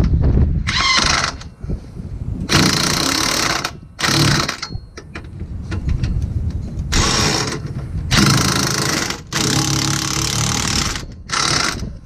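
DeWalt cordless impact wrench running bolts in at the lower mount of a rear strut, in about seven rattling bursts of a half-second to a second and a half, with short pauses between them.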